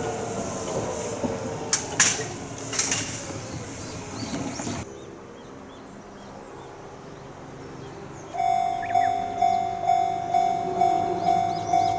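A train runs past over a level crossing, with falling tones and a couple of sharp wheel clacks; the sound cuts off abruptly about five seconds in. After a short quieter stretch, a Japanese level crossing's electronic warning bell starts ringing, a single tone repeating about twice a second.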